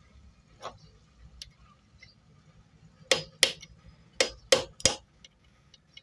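Light metal-on-metal taps: a bolt used as a drift knocking a sewing machine's thread-tension assembly gently into its seat. One tap shortly after the start, then a run of five sharper taps about three to five seconds in.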